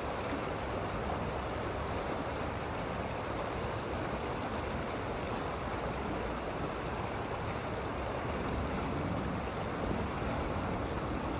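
Steady rushing of flowing water, like a stream running over rocks.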